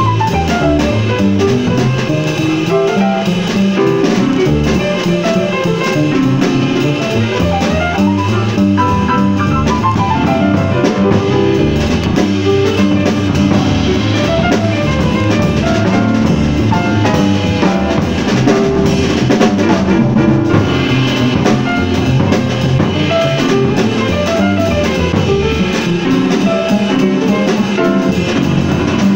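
Live jazz played on piano with a drum kit: the piano plays quick runs that climb and fall over a steady drum beat.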